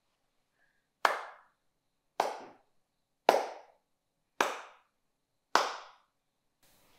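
A man's slow handclap: five single claps about one a second, each ringing briefly in the room.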